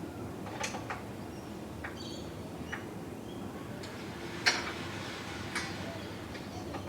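Scattered light clicks and knocks from work on an aluminium sliding window being screwed into its timber frame, the loudest about four and a half seconds in, over a steady low background hum.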